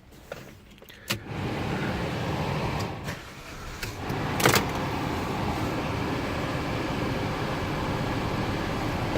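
Alfa Romeo MiTo with a two-cylinder petrol engine, running: a click about a second in, then steady engine and road noise, with a short dip and a sharp clack about midway.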